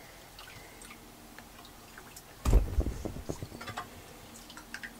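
Elderflower heads and lemon being stirred into liquid in a large plastic bowl: a few light ticks of the utensil, then a louder slosh about two and a half seconds in, trailing off into smaller splashes and ticks.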